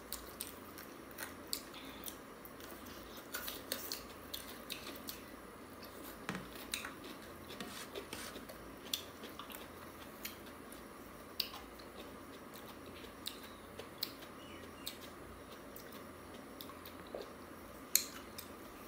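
Close-up eating sounds of chicken eaten by hand: scattered soft clicks and smacks of chewing, and of fingers picking at food on a plate, over a faint steady room hum, with a sharper click near the end.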